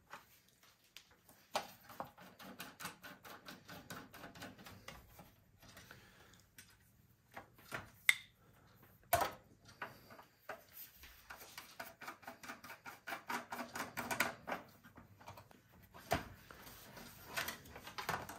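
Hands working the metal drive tray and its screws out of a Macintosh II case: runs of rapid small clicks and rattles, with a couple of sharper knocks about halfway through.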